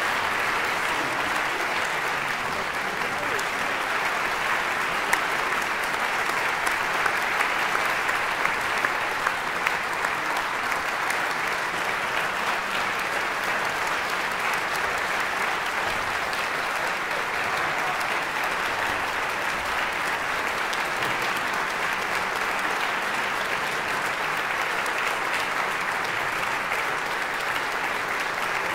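Concert audience applauding steadily, with a few louder single claps standing out between about five and ten seconds in.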